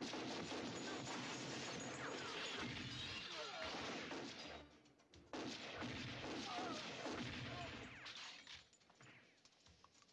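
Film-soundtrack gunfight: rapid, near-continuous handgun fire mixed with crashing impacts. It breaks off for a moment about halfway, starts again abruptly, and dies away near the end.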